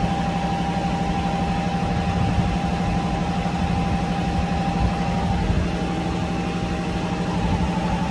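A boat's marine diesel engine idling steadily, with a low hum and a fast, even beat.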